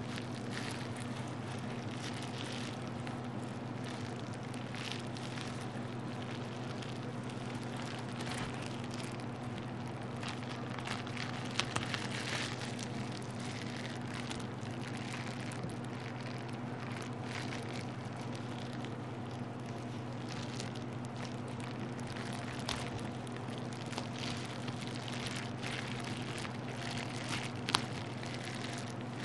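Plastic bubble wrap being handled and crinkled, a continuous crackling with a few sharper snaps, one about twelve seconds in and one near the end. A steady low hum runs underneath.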